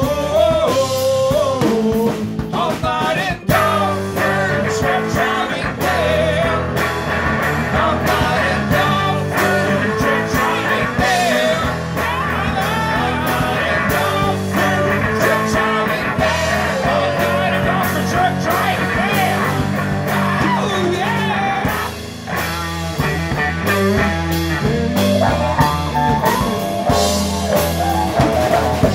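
Live rock band playing a loud, driving song on electric guitars, bass guitar and drum kit, with a wavering lead line on top. The band drops out briefly about two-thirds of the way through.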